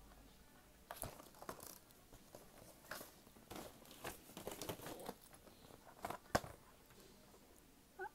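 Gift packaging being handled: faint crinkling and rustling of a boxed gift set, with scattered clicks and one sharper knock about six seconds in.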